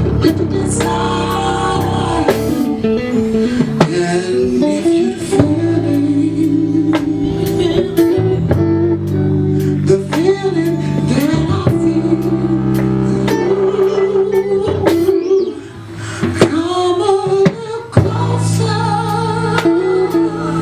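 Live band playing: drums keeping a steady beat under bass, keyboard chords and electric guitar, with a bending melody line over the top. The band briefly drops back about three quarters of the way through, then comes back in.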